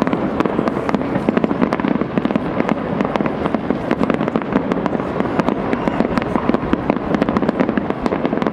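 Fireworks display: a dense, continuous barrage of aerial shell bursts and crackle, many sharp reports a second with no let-up.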